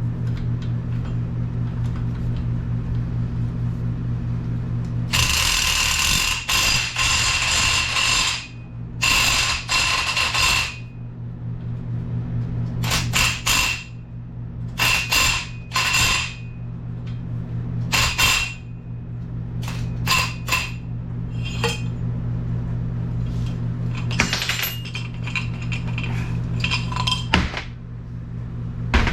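Hand tools working a stubborn fastener on a steering rack: repeated bursts of ratcheting and metal-on-metal noise over a steady low hum.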